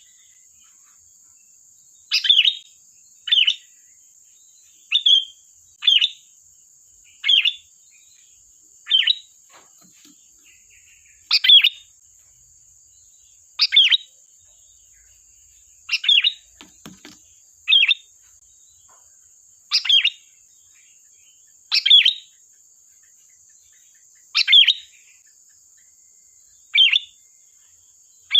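Sooty-headed bulbul (kutilang) giving short, sharp calls, one every one to two seconds, over a faint steady high hiss.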